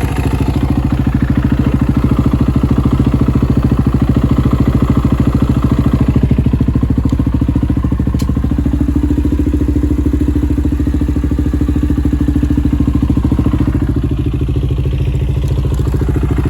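2004 KTM 450 EXC's single-cylinder four-stroke engine running steadily at idle, its note shifting slightly about halfway through. The engine has just come back to life after sitting about five years, on a carburetor the owner says has issues.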